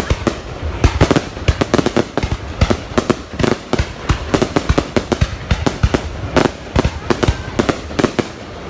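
Fireworks going off in a dense, irregular run of sharp bangs and crackles, several a second.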